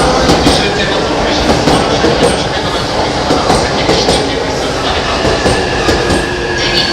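E657 series limited express train running into the station platform: a steady rumble of wheels on rail, with repeated clicks as the wheels cross rail joints and points.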